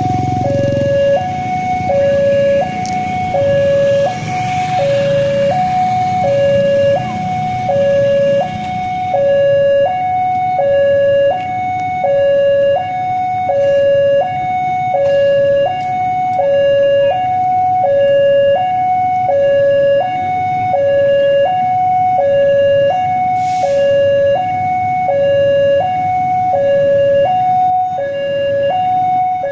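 Railway level-crossing warning siren sounding a steady two-tone high–low alternation, about one cycle every second and a half, signalling that a train is about to pass. A low rumble runs under it for the first several seconds.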